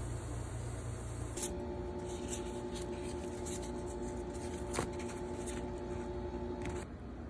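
Dry corn husk rustling and crackling as a steamed tamale is peeled open by hand, with one sharp crackle about five seconds in. Under it runs a steady low hum, and a low rumble fills the first second or so.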